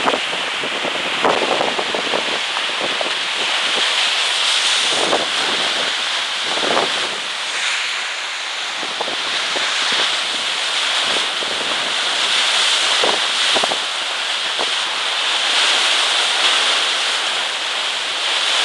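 Wind buffeting the microphone over water rushing past the hull of a Farrier F-9AX trimaran sailing fast through rough sea, with a few short louder splashes of spray at the bow.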